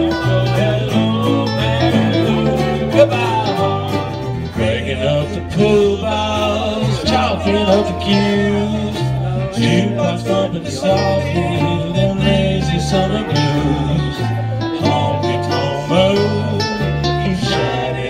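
A small acoustic string band playing an instrumental passage: strummed ukuleles and acoustic guitar over a bass line.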